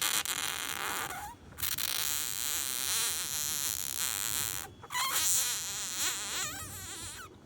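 Kittens mewing in high, wavering calls, broken by a few short silent gaps.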